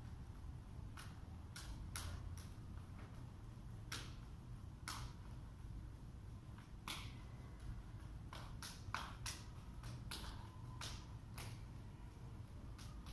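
Irregular light slaps and taps of hands and forearms meeting during a partner knife-flow drill, about fifteen short sharp contacts, bunching into a quick run in the second half, over a low steady room hum.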